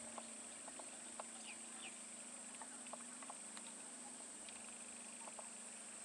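Faint roadside forest ambience: a steady high hiss and a low steady hum, with scattered short bird chirps.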